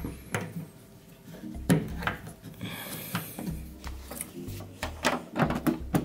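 Plastic clicks and knocks of a washing machine's detergent dispenser drawer parts being handled and fitted together, several sharp clicks with a quick cluster near the end, over background music with a steady bass line.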